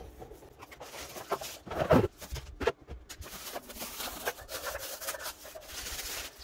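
Clear plastic bags crinkling and rustling as they are pulled off a food chopper's glass bowl and motor unit, with a couple of light knocks of parts set down about two seconds in.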